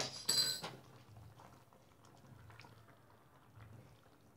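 A short ringing clink about half a second in, as a small metal spoon or bottle is set down on the counter. Then the thick chicken rezala gravy simmers faintly in the pan with soft stirring.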